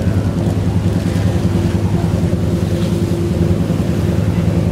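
A boat's engine running steadily, a low even drone that holds the same pitch throughout.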